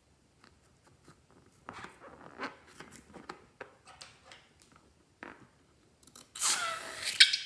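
Small scattered clicks and crackles of a rubber balloon being handled and snipped with scissors. About six seconds in, a louder swishing sound with a falling tone begins.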